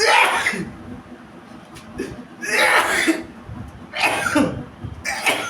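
A person coughing hard in about four bursts after taking a pinch of snuff: the snuff has gone to the throat and brings on coughing instead of a sneeze.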